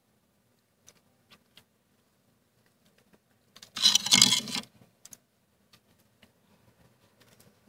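Thick freezer frost being scraped loose: one loud, crunchy scrape of about a second, about four seconds in, with a few faint clicks and crackles of frost before and after.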